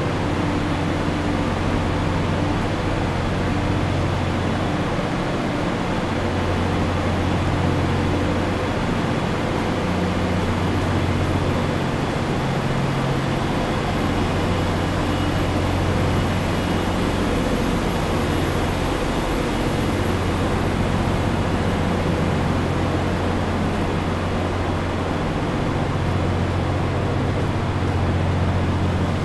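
Trains standing in a station train shed: a steady low hum and rumble, the hum fading and returning every few seconds.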